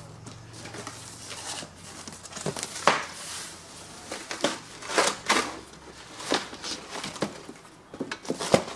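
A cardboard shipping box being opened and unpacked: flaps flexing and cardboard rubbing and rustling, with sharp knocks and scrapes as an inner box is lifted out near the end.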